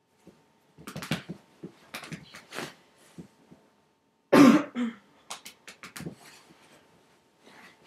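Bull terrier snapping and playing, with a string of short huffs, snorts and sharp clicks. The loudest is a cough-like burst about four and a half seconds in.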